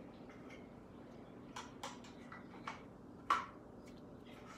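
Quiet room tone broken by a few faint, sharp clicks and taps, the loudest a little past three seconds in.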